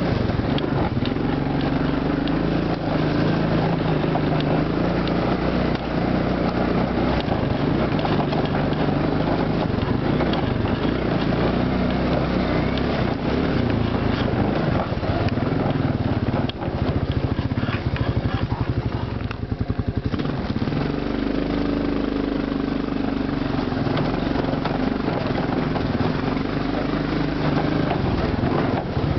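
ATV engine running as it climbs and rides over a rough dirt trail, its pitch rising and falling with the throttle. About two-thirds through it drops briefly to low revs, then picks up again.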